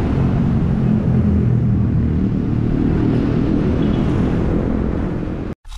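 Steady wind and road rumble picked up by a bicycle-mounted action camera while riding, cutting off abruptly near the end.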